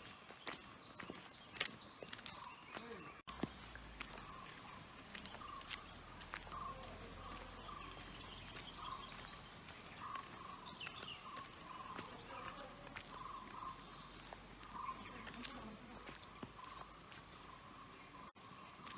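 Faint outdoor ambience of birds calling: short chirps repeat every half second or so, with a few falling high whistles in the first seconds and scattered clicks.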